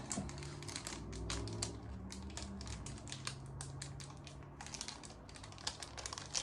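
Small plastic parts and packaging being handled: a quick, irregular run of light clicks and crackles over a faint low hum.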